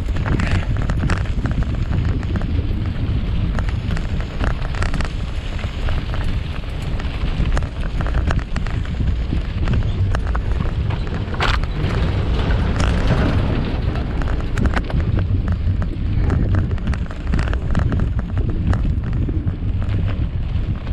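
Wind buffeting the microphone of a camera mounted on a moving mountain bike, a steady low rumble, with frequent rattles and knocks from the bike riding over rough ground.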